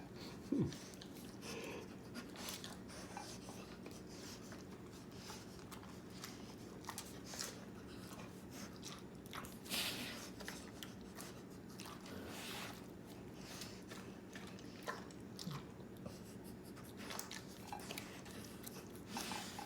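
A dog eating a cheeseburger: faint, irregular chewing and mouth smacks, with a louder smack just after the start and another about halfway through.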